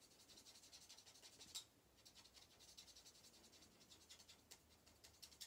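Stampin' Blends alcohol marker nib scratching over cardstock in quick, short back-and-forth colouring strokes, a faint dry scratch. The dry sound comes from an older, drier set of markers.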